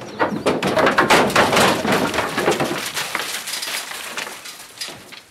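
Elk hooves clattering and banging on the metal floor and walls of a livestock trailer as the elk come off it, a dense run of knocks loudest in the first few seconds and fading toward the end.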